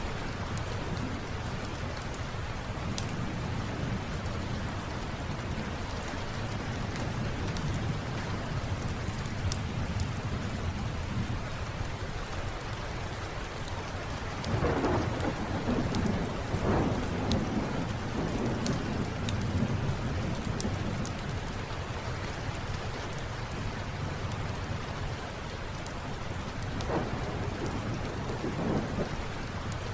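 Steady rain with low thunder rolling in, swelling louder about halfway through and again near the end, over scattered sharp crackles of a wood fire.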